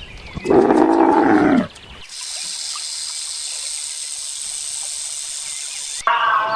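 A farm animal's loud call lasting about a second, falling in pitch at the end. It is followed by about four seconds of steady high-pitched hiss, and a second, higher-pitched animal call starts near the end.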